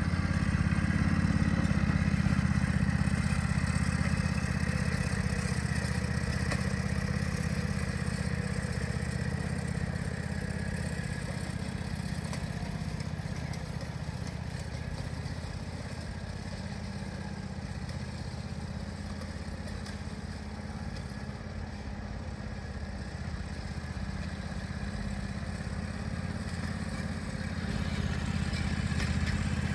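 John Deere Gator utility vehicle's engine running steadily as it drives across a field. It fades as the vehicle moves away and grows louder again near the end as it comes back close.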